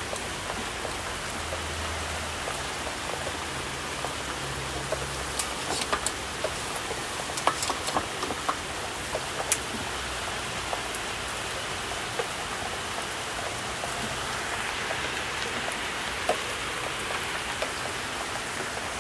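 Steady heavy rain of a storm, with scattered sharp drops striking nearby, most of them between about five and ten seconds in.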